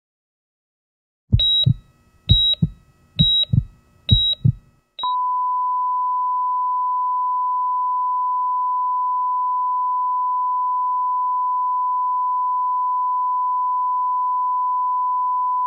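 Countdown of four short high beeps about a second apart, each with a low thump under it, then a brief fifth blip and a steady, unbroken test tone of the kind played with TV colour bars.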